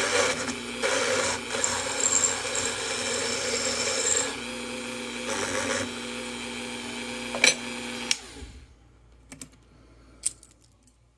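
Rotary tool running at a steady high speed with tubing chucked in its collet, with spells of harsh scraping as the spinning tubing is cut. About eight seconds in the motor is switched off and winds down, followed by a few light clicks.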